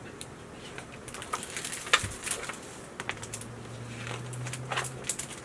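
A picture book being handled and opened: scattered small clicks and taps of pages and cover, with one firmer knock about two seconds in, over a faint low hum.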